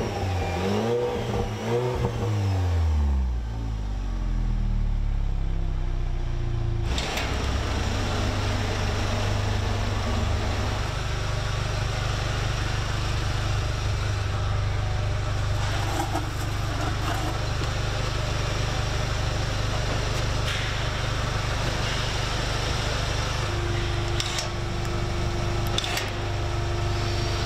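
Cadillac CT5's exhaust through a stainless Top Speed Pro-1 valved catback: the engine is revved a few times, the revs fall back about three seconds in, and it settles into a steady idle.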